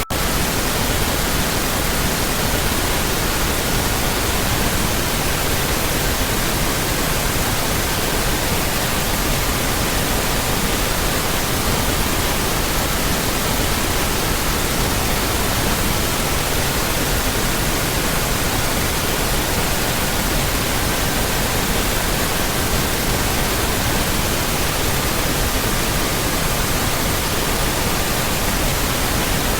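Steady pink noise with a faint pure sine tone beneath it. The tone steps between pitches of about 1200, 1320, 1440 and 1555 Hz, changing roughly every four seconds. A momentary dropout comes at the very start.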